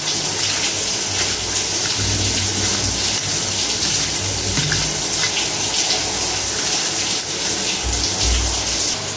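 Hands squishing and mixing raw chicken pieces in a wet marinade in a steel bowl, over a steady hiss.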